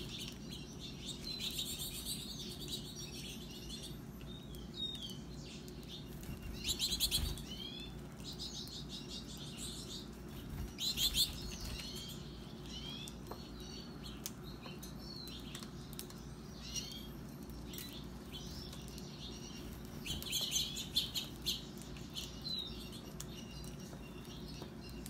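Small birds chirping and twittering in scattered bursts, over a steady low hum.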